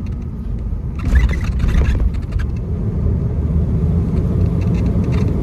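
Steady low road-and-engine rumble inside a moving camper van's cabin, growing a little louder about a second in, with a few light rattles.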